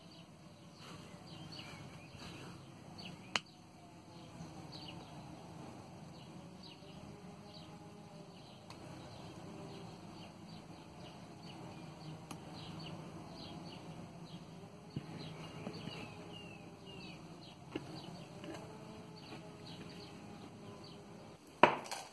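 Faint bird chirps throughout, with a few sharp, isolated clicks as the ring cutter snips wire rings from the coil. A brief loud clatter comes near the end.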